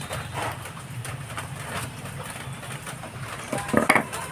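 Kitchen knife scraping scales off a fish on a wet stone floor in short repeated strokes, then a few louder knocks near the end as the knife is set down. A steady low hum runs underneath.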